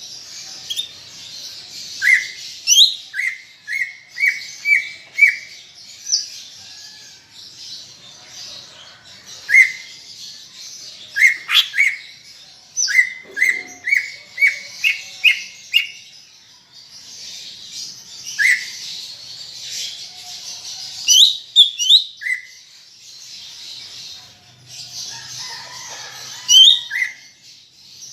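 Green leafbird (cucak ijo) singing: runs of short, sharp whistled notes repeated several times in quick succession, some sweeping upward, over a continuous high chattering warble.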